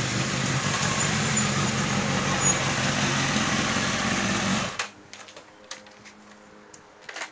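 Honda CB1000R inline-four with an aftermarket Scorpion exhaust, running at low speed as the bike rolls in and stops, then shut off abruptly about five seconds in. A few light clicks follow.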